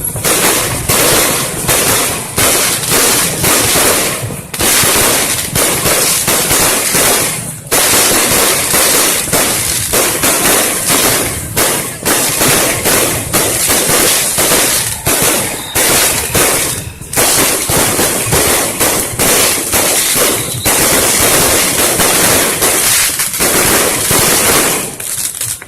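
Fireworks and firecrackers going off in a dense, continuous barrage of cracks and bangs, with a few brief lulls.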